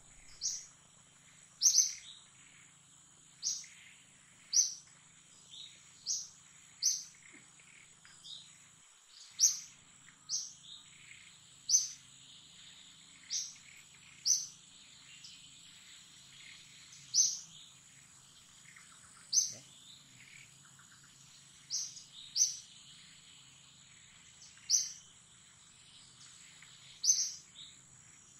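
A bird repeating a short, sharp, high chirp about once a second, unevenly spaced, over a steady thin high-pitched drone from the forest.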